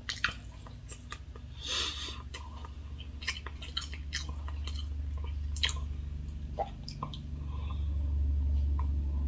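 Close mouth sounds of a man sipping and swallowing coffee from a mug: small wet clicks and a louder sip about two seconds in. Under them is a low steady hum that grows louder near the end.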